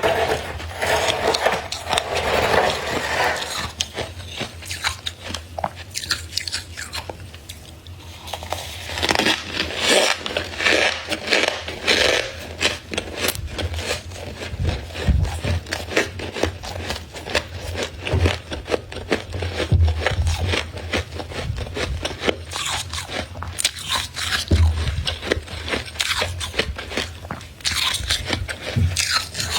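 Freezer frost being scraped and crunched off in a dense, continuous run of crackly scrapes, easing briefly about a quarter of the way through.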